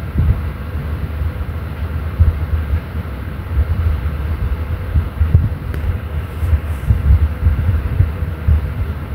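Low rumbling and irregular thumps of handling noise on a handheld phone's microphone as it is carried along while walking.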